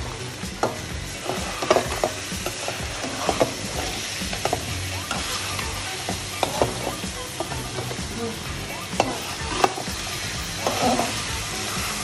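Paneer cubes and green peas frying in a metal kadai with a steady sizzle, while a metal spatula stirs them and scrapes and clicks irregularly against the pan.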